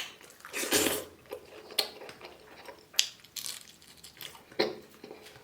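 Tableware clinking and scraping during a meal: several sharp clinks about a second apart, with a longer scrape just under a second in.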